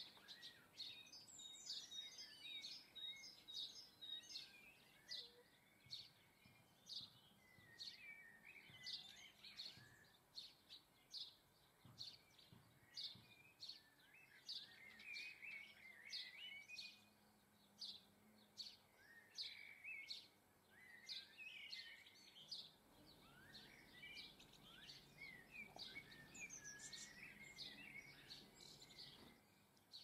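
Faint garden birdsong: many short, high chirps and twittering calls from small songbirds, repeating throughout.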